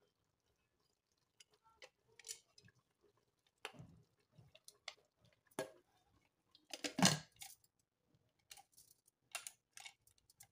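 Aluminium pressure cooker lid being fitted into the pot and locked shut: a scattering of short metal clicks and clanks, the loudest clank about seven seconds in.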